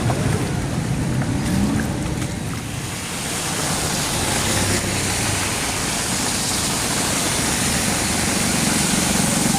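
Heavy rain falling on a street: a steady hiss, under a low rumble of road traffic. The hiss builds a few seconds in.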